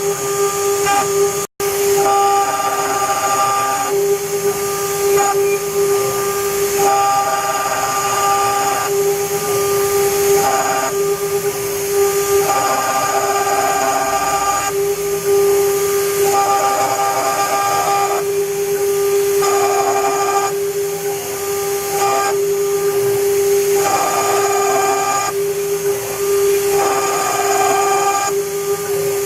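CNC router spindle running with a steady whine while the engraving bit cuts into copper. A harsher cutting noise comes and goes every second or two as the tool moves through its passes. The sound cuts out for an instant about a second and a half in.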